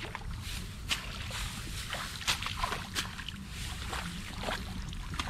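Small splashes and sloshes of muddy paddy water as rice seedlings are handled and pushed into the flooded mud during transplanting, a few sharp splashes standing out, over a steady low rumble.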